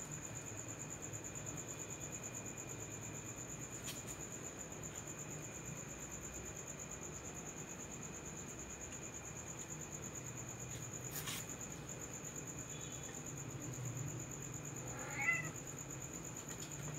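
Crickets trilling steadily at a high pitch over a low hum, with two faint clicks. About fifteen seconds in, a cat gives one short meow, the loudest sound.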